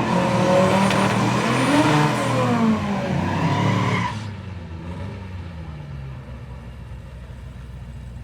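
Drag racing car engine at high revs, its pitch rising then falling, over a rush of noise. It drops away suddenly about four seconds in, leaving a quieter low engine rumble.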